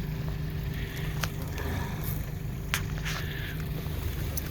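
Steady low hum of an idling boat motor, with a few sharp ticks and a short hissing splash about three seconds in.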